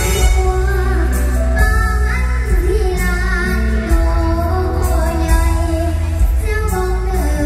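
Live mor lam music: a female singer's amplified voice carrying the melody over the band, with a heavy, steady bass, played loud through a stage sound system.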